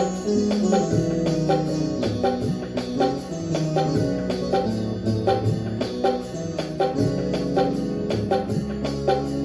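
Yamaha PSR-i500 portable keyboard playing a song: held melody notes in an organ-like voice over the keyboard's auto-accompaniment, with a steady beat of percussion and a bass line.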